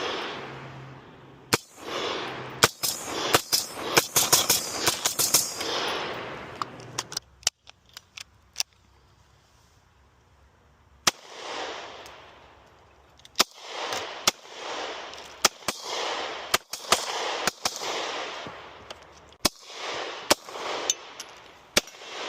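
Gunfire from handheld firearms, each shot trailing an echo. A fast run of shots comes about two to six seconds in, then a short pause, then a long string of single shots fired roughly a second apart.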